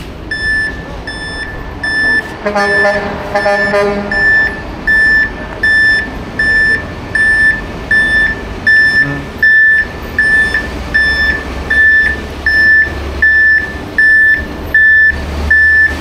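Concrete mixer truck's reverse alarm beeping steadily, about one and a half beeps a second, while the truck backs up; its diesel engine rumble grows louder over the last few seconds as it comes closer. A short horn-like blare sounds for about a second and a half, about two and a half seconds in.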